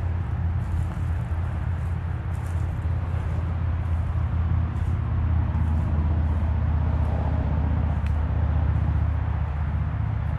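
Steady low rumble with faint, light ticks or rustles scattered over it.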